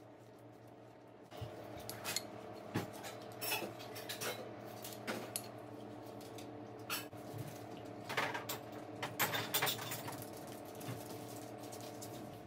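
Small metal parts clinking and clattering irregularly, as when handling a power tool's gears and fittings, over a steady low hum that starts about a second in.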